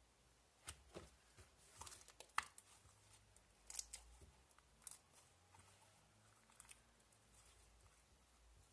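Homemade slime being squeezed and stretched by hand, giving faint, scattered crackles and small pops.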